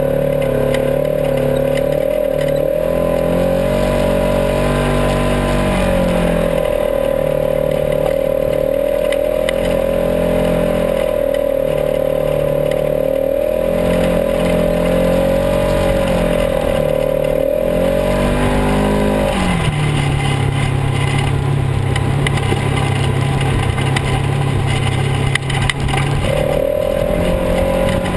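Polaris RZR XP 900 side-by-side's twin-cylinder engine running under way, its pitch dipping and climbing back every few seconds as the throttle comes off and on. About two-thirds through the engine note falls low and stays there for several seconds, then climbs back up near the end.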